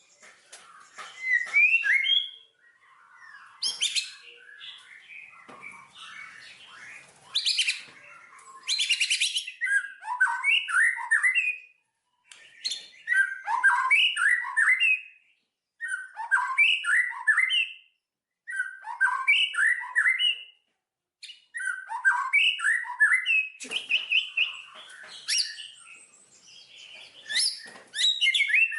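Songbird singing a phrase of quick rising chirps over and over, each phrase lasting about a second and a half with short pauses between. Harsher, buzzy notes come in around four seconds and again around eight seconds.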